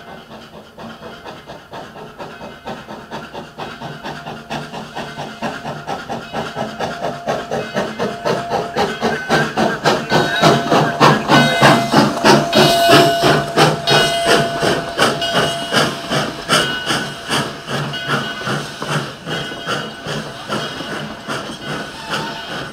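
Virginia & Truckee steam locomotive approaching with a rhythmic exhaust chuff, about two beats a second, with steam hissing. The chuffing grows steadily louder, is loudest about halfway through, then softens a little as the engine comes alongside.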